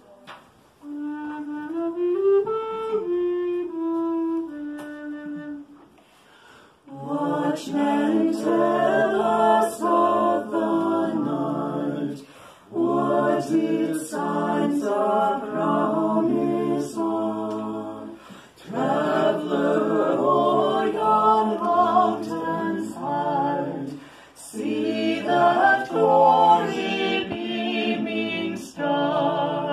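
A short solo melody on a wooden recorder, then a small mixed-voice ensemble singing a cappella in several parts. The singing comes in phrases of about six seconds with brief breaks between them.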